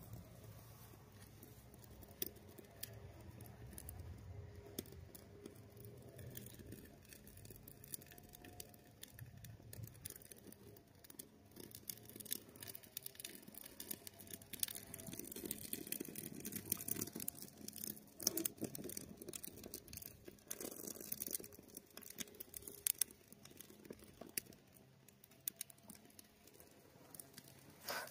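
Faint, irregular crackles and small snaps from twigs and birch-bark kindling as a campfire is laid and lit, busier about halfway through, with a few sharper snaps.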